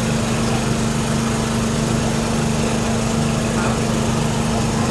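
A small engine running steadily at an even speed, with a constant hum.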